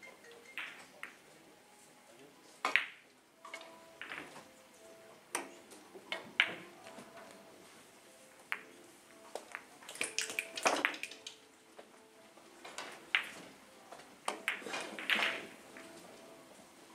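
Carom billiard balls clicking sharply against one another and the cue tip striking, a click every second or two, with a denser run of clicks about ten seconds in. A faint murmur of voices runs through the hall.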